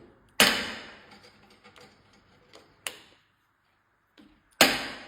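Hammer knocks on the loosened bottom bolts of a mountain bike's air suspension fork, striking them to free the lower legs from the stanchions. Two sharp knocks that ring briefly, one about half a second in and one near the end, with a light tap between.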